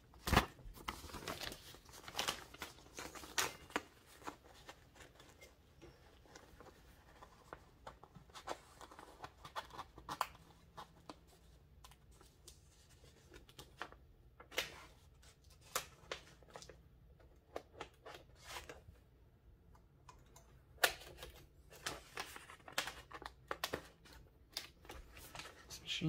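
A sheet of paper being fed into an Empire No. 2 typewriter: irregular rustling and scraping of paper against the carriage, with scattered sharp clicks from the platen mechanism. The machine has trouble feeding this paper, which catches on a ledge and needs effort to get past.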